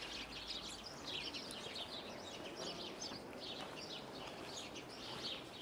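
Many small birds chirping together, a continuous stream of short, high chirps over a steady background hiss.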